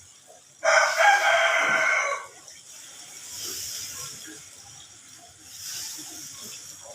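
A rooster crowing once, one loud call of about a second and a half.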